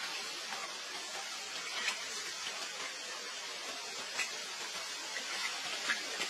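Steady hiss of water, with a few faint ticks about two seconds apart.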